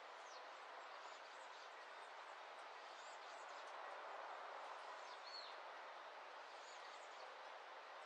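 Faint outdoor dawn ambience: a soft, steady hiss with a few faint bird chirps scattered through it, one clearer arched chirp about five seconds in.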